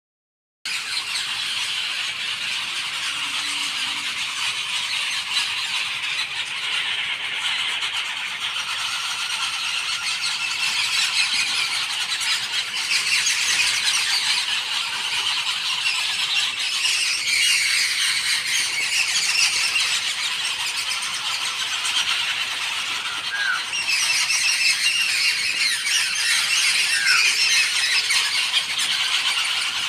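Dense chorus of birdsong, a constant high chatter, with two short rising calls in the second half.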